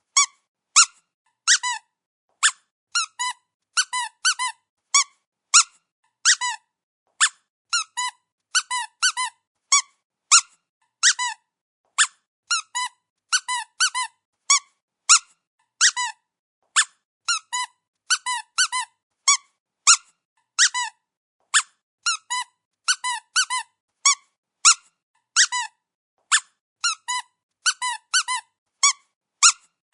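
Rubber dog squeaky toy squeezed over and over, giving short, high-pitched squeaks, often in quick pairs or threes with brief pauses between.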